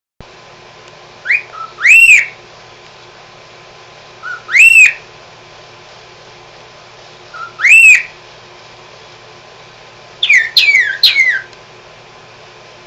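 Pied cockatiel whistling its song: three times a short rising note is followed by a louder whistle that rises and falls, about three seconds apart, then a quick run of falling notes near the end.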